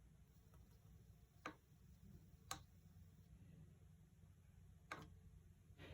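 Near silence with three faint, short clicks spread over several seconds.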